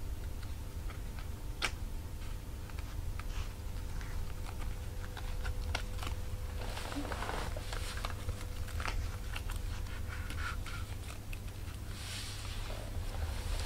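Small clicks and rustles of a red patent-leather high-heel sandal being handled and its ankle-strap buckle fastened, over a steady low hum.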